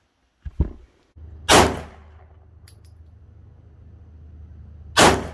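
Two shots from a Ruger P85 9mm pistol, about three and a half seconds apart, each ringing out briefly, over a low steady hum. A short click comes about half a second in, before the shots.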